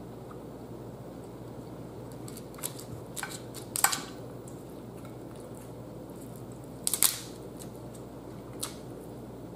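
Boiled blue crab shells being cracked and pulled apart by hand: a few short sharp crackles and snaps, the loudest about four seconds in and another cluster about seven seconds in, over a steady low room hum.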